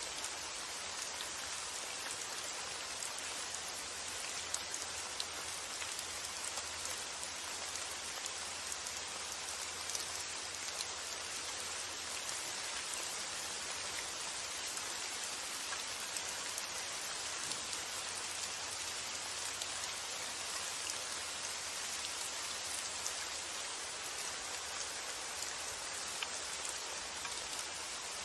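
Steady rain falling, an even hiss with the ticks of single drops scattered through it.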